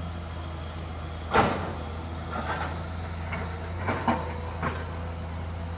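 A heavy diesel engine running steadily with a low hum. A sharp clank comes about a second and a half in, followed by a few fainter knocks.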